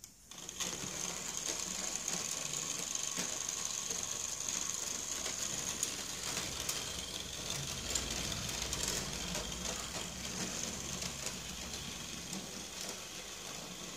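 An H0-scale model streetcar's small electric motor and gearing whirring steadily as it runs pulling two trailers, with scattered clicks. The whir starts about half a second in.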